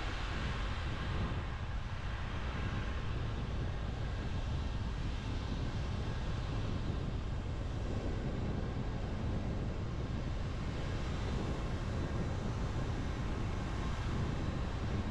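A car driving on a rain-wet road: a steady low rumble with an even hiss of tyres on the wet surface.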